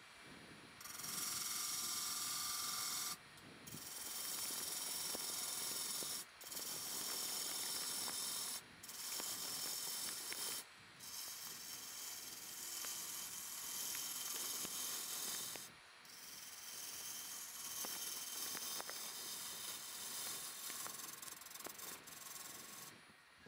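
Gouge cutting into the face of a laminated wood platter spinning on a lathe: a steady, high, rushing cut as the inside is hollowed out, breaking off briefly every few seconds as the tool lifts between passes.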